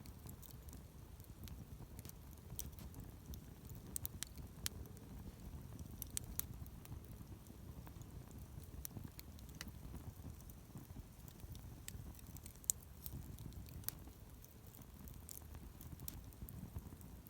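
Wood campfire burning: irregular sharp crackles and pops of the burning wood over a steady low rumble, with one louder pop about two-thirds of the way in.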